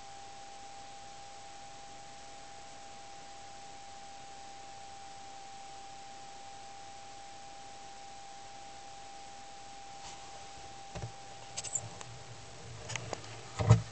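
Steady recording hiss with a faint high hum, then a few knocks and bumps from the camera being handled over the last few seconds, the loudest just before the end.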